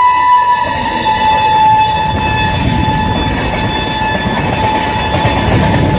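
Saraighat Superfast Express sounding a long, shrill horn as it rushes past at high speed. The horn's pitch drops slightly about half a second in as the locomotive passes, and the rumble and clatter of wheels on the rails build underneath it.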